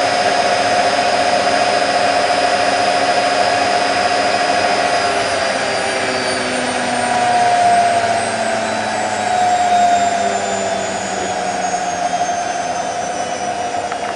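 Candy Nova CN146 washing machine on its fast 1400 rpm final spin, a steady loud whir with a high motor whine. About halfway through the whine starts to fall slowly in pitch as the drum begins to slow at the end of the spin.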